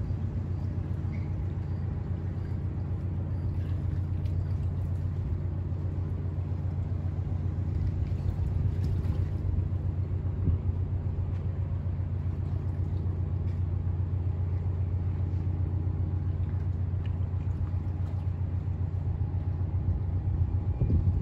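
Bulk carrier moving slowly through a canal lock at close range: a steady low rumble from the ship's engine and machinery.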